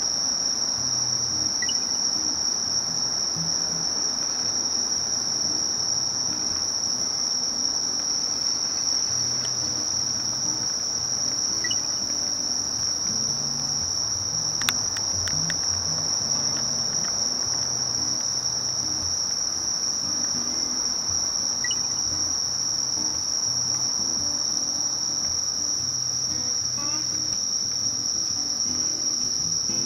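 Night chorus of singing insects, crickets or katydids: one steady, unbroken high-pitched trill, with a faint low rumble beneath and a brief click about halfway through.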